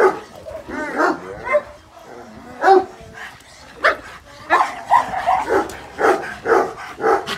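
Dogs barking, a string of about a dozen short barks that come faster in the second half.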